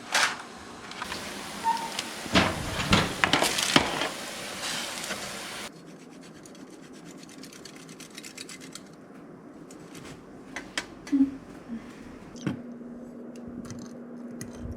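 Kitchen cooking sounds: several seconds of scraping and rubbing strokes, then an abrupt drop to a quieter stretch with scattered light clicks and a steady low hum in the last couple of seconds.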